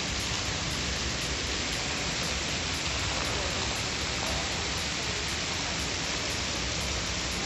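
Indoor fountain: thin water jets falling and splashing steadily into a shallow pool, an even rush of water.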